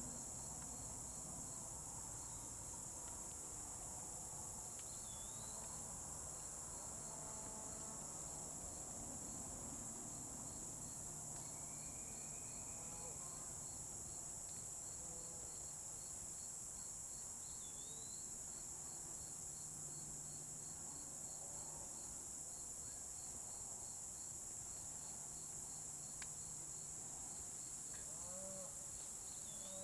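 Steady chorus of crickets and other insects, a continuous high-pitched buzzing and fast even pulsing, with a faint short chirp now and then.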